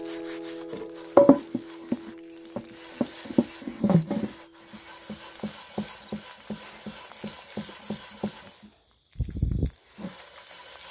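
A soapy loofah sponge scrubs the outside of a cast iron pot in quick rubbing strokes, two to three a second, with a wet, crackling hiss. A ringing tone at the start fades out about five seconds in.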